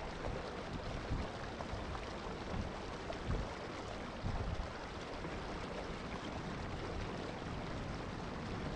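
Steady rush of water along the hull of a Hobie Pro Angler 14 fishing kayak under way on Torqeedo electric power, with uneven low rumbles mixed in.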